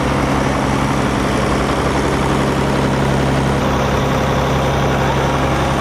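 Truck engine idling steadily: a loud, even rumble with a constant low hum.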